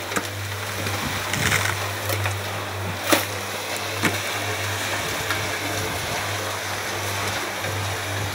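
Small concrete mixer running, its motor and turning drum giving a steady low hum, with a few sharp knocks as material goes in, the loudest about three seconds in.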